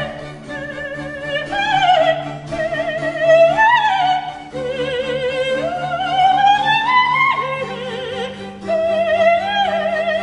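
Soprano singing an opera aria with wide vibrato and a long rising phrase in the middle, over a small orchestra with strings.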